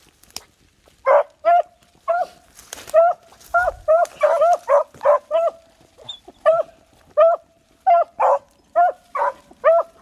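A brace of beagles baying on a rabbit's scent: a run of short, pitched barks, about two a second, as the hounds trail the rabbit.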